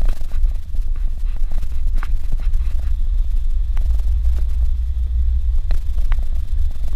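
Suzuki Jimny driving on a dirt road: a steady low rumble with scattered knocks and rattles.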